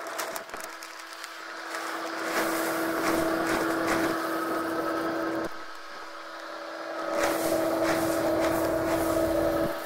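Maize seed pouring from a paper sack into a plastic seeder hopper, a dense rattling hiss in two pours, one in the first half and one near the end. A steady machine hum runs underneath throughout.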